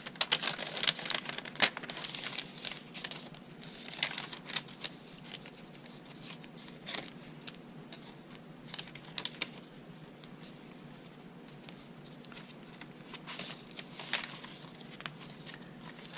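Paper and card stock of a handmade junk journal rustling and crinkling as pages are turned and tucked cards are handled. The sounds come in irregular flurries, busiest in the first few seconds and again near the end.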